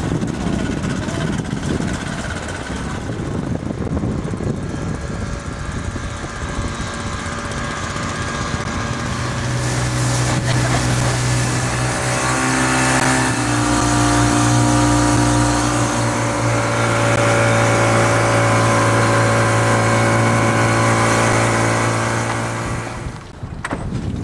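Yamaha outboard motor driving a small boat across open water, with wind and water rushing. From about nine seconds in the engine holds a steady note, and the sound stops abruptly near the end.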